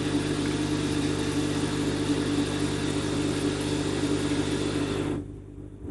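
Steady mechanical hum of a running motor: a few fixed low tones over an even hiss. It drops away suddenly about five seconds in.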